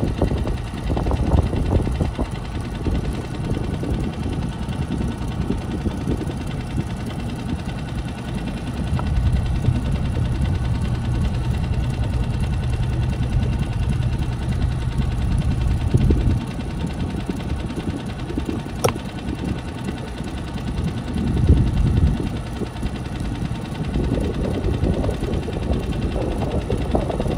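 Boat's outboard motor running steadily under a low, uneven rumble, with its hum strongest in the middle stretch. A single sharp click about two-thirds of the way through.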